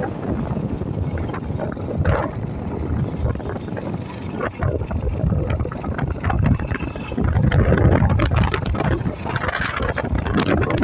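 Wind buffeting the microphone on a moving motorcycle, with the low running of a Yamaha SR400's single-cylinder engine underneath, rising and falling in gusts.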